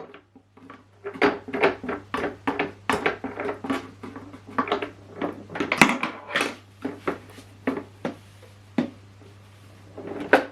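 Hand scrubbing and wiping the plastic body of a Henry vacuum cleaner: irregular rubbing strokes, about two to three a second, with a single knock near the end.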